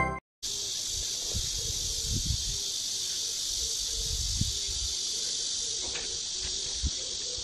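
Steady, high-pitched drone of a summer insect chorus, an even hiss that runs on without a break.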